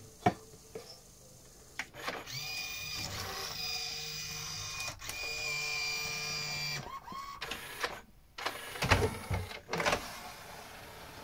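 Pioneer CLD-2950 LaserDisc player's mechanism running: clicks, then a steady motor whine for several seconds as the player changes mode, ending in a short glide. A few loud knocks follow near the end.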